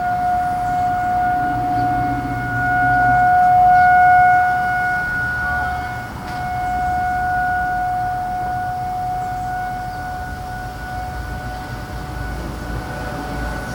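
Distant tornado warning siren sounding during a test. It holds one steady tone that swells louder about four seconds in, dips briefly, then carries on, with a low rumble beneath.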